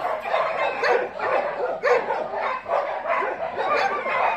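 Several dogs barking and yipping without a break, their short calls overlapping one another.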